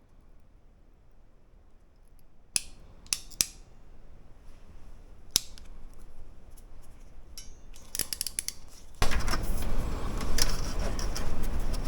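Several sharp snips and clicks of a hand tool working on wiring, spread out over a few seconds. About three quarters of the way through, a louder steady rushing background sets in suddenly.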